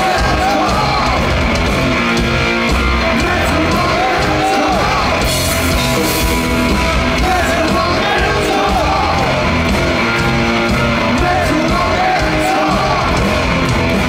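Heavy metal band playing live at full volume, with a singer yelling and singing over the band.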